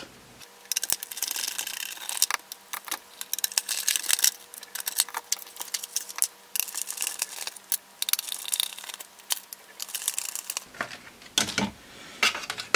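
Plastic housing and circuit boards of a car heater control unit being handled and pulled apart: a quick run of small clicks, taps and rattles as the boards come free of the housing.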